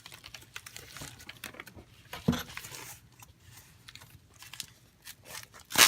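Cardboard mailing package being handled and opened: scattered rustles and scrapes of packaging, with a sharp knock about two seconds in and a louder one near the end.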